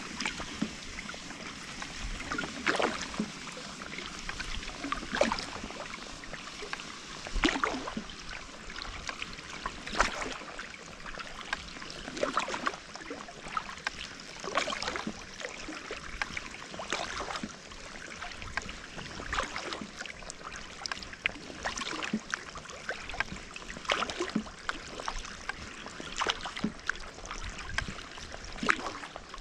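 Double-bladed kayak paddle dipping into calm sea water stroke after stroke: rhythmic splashes with trickles and drips off the blades, a stronger splash about every two and a half seconds.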